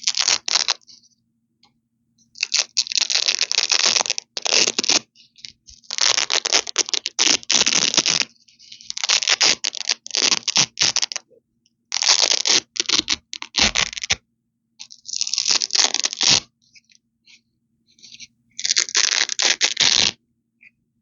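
Hook-and-loop (Velcro) tape being ripped apart close to the microphone: a crisp, crackly tearing, repeated about eight times, with each rip lasting up to two seconds and short pauses between.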